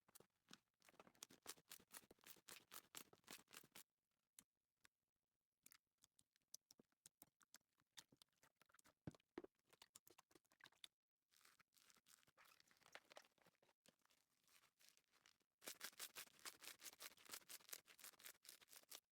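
Slime being played with by hand: faint runs of rapid clicking and crackling pops, in bursts with short pauses between them, the densest run near the end.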